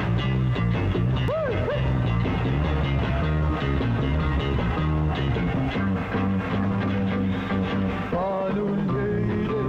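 A 1960s-style kugiran pop band playing live, with electric guitars over bass and drums in a rock-and-roll beat. A couple of swooping, sliding notes stand out, one about a second in and another near the end.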